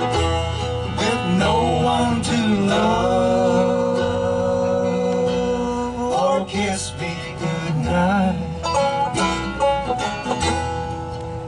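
Live bluegrass band playing: five-string banjo, mandolin, acoustic guitar and upright bass, with voices singing a long held note in the first half.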